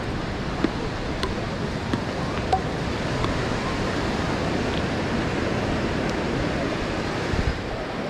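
Ocean surf breaking and washing onto the beach, a steady rush of waves with a few faint clicks over it.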